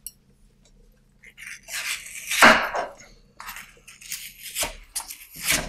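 A metal spoon scraping the gel out of an aloe vera leaf, in several rasping strokes that start about a second and a half in.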